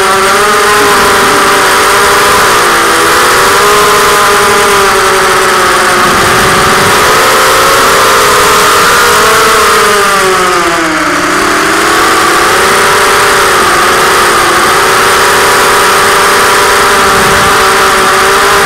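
FPV quadcopter's electric motors and propellers whining, recorded by its onboard camera along with a rushing air hiss. The pitch dips about ten seconds in as the throttle is eased off, then climbs back.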